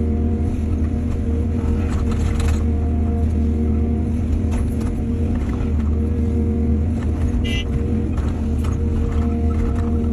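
Heavy diesel earthmoving machinery running steadily with a deep engine drone, with several irregular metallic clanks and one brief high squeal about seven and a half seconds in.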